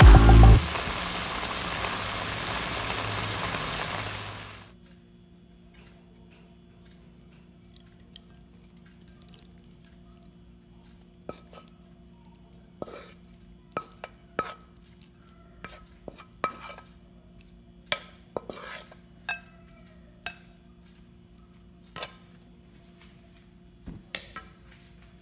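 Chicken and broccoli stir-frying in a pan, a steady sizzle that cuts off suddenly about four and a half seconds in. After that a faint steady hum, with scattered light clinks and taps through the second half.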